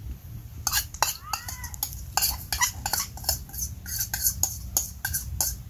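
A metal spoon scraping and clinking against a bowl held over a stainless steel cooking pot, scraping out the last of a sauce: a run of quick scrapes and clinks starting about a second in, some with a short metallic ring.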